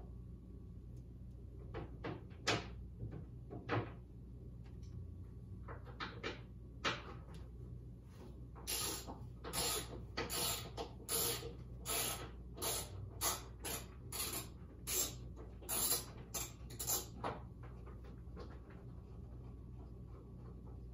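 Hand ratchet clicking in short bursts on its back-strokes as bolts on a windshield pillar are worked. A few scattered strokes at first, then a steady run of about one to two a second that stops a few seconds before the end.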